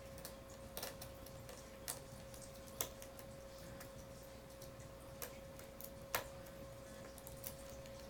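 Small screwdriver working tiny screws into a laptop case: about six light, irregular clicks and ticks of the driver tip and screws, over a faint steady hum.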